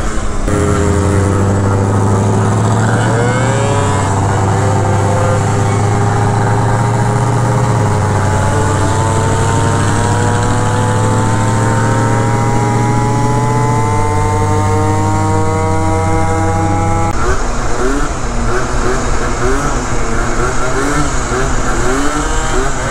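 Small Yamaha scooter engine running under way, its pitch rising slowly over about ten seconds. About seventeen seconds in it changes abruptly to a rougher, wind-buffeted engine sound.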